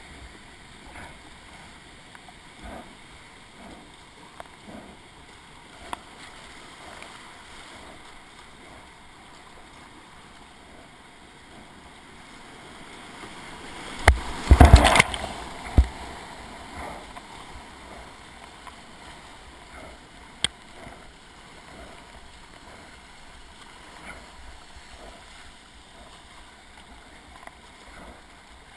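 Whitewater rushing steadily around a kayak as it paddles down a river rapid, with a few short knocks and splashes from the paddling. About halfway through, a loud burst of crashing, splashing water lasting a couple of seconds as the kayak plunges through a breaking wave.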